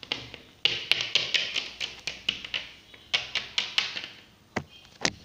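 Small plastic Littlest Pet Shop figurines tapped along a hard surface to make them walk: two quick runs of light taps, several a second, then two single taps near the end.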